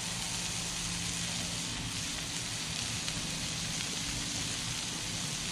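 Beef smash burger patties sizzling steadily on a hot Blackstone flat-top griddle, with a low steady hum underneath.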